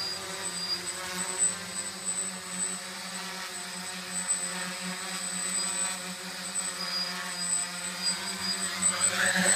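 DJI F450 quadcopter hovering: its four motors and propellers make a steady buzzing hum with a high whine above it, growing a little louder near the end as the drone comes closer.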